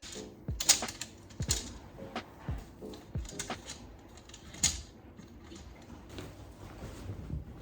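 Irregular light clicks and knocks of small hard objects being handled, a few louder than the rest, over faint background music.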